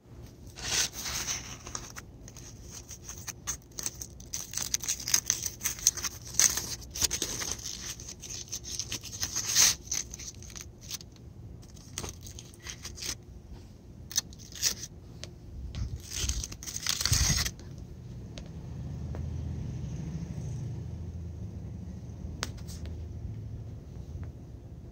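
Aluminium foil crinkling and rustling in irregular bursts as it is unfolded and pulled open by hand. The crinkling stops about 17 seconds in and gives way to a low steady rumble.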